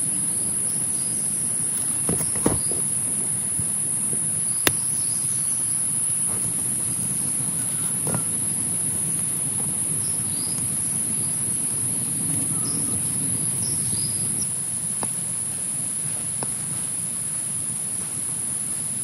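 Steady rainfall with a continuous high-pitched chorus of insects over it. A few sharp ticks of falling drops come about two and a half and five seconds in, and faint short chirps come now and then.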